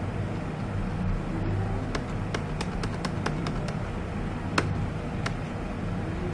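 Steady low background hum with a run of about a dozen light, quick clicks starting about two seconds in and lasting about three seconds, one sharper click among them near the end.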